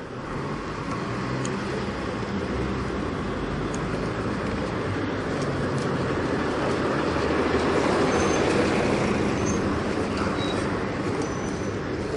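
City street traffic heard from a moving bicycle: steady engine noise from vans, a bus and a work truck close alongside, with a low steady hum. It grows louder, peaking about eight seconds in as the bike passes the vehicles, then eases off.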